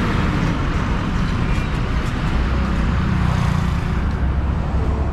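Road traffic noise: motor vehicles running and passing, with a steady low engine rumble.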